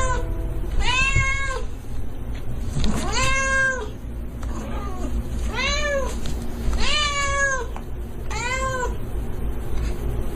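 A domestic cat meowing five times, each a drawn-out meow that rises, holds and falls in pitch, over a steady low hum.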